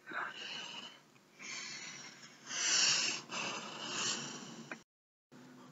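A man sniffing and breathing heavily through his hands cupped over his nose and mouth, in several long, noisy breaths.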